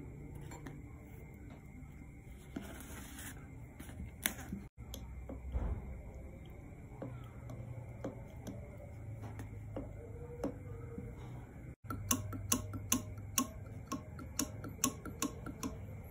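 Light metal clicks and knocks from handling a hydraulic pump regulator body and an Allen key on a cardboard-covered bench. In the last few seconds they come in a quick run of sharp clicks, about three a second.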